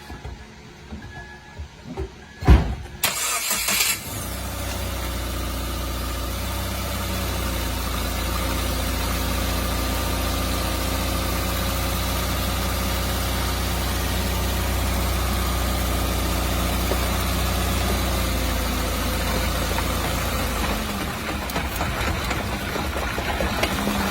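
A thud about two and a half seconds in, then a 2016 Subaru Crosstrek's flat-four engine cranks and starts, settling into a steady idle. Near the end the engine sound eases and a few light knocks come in.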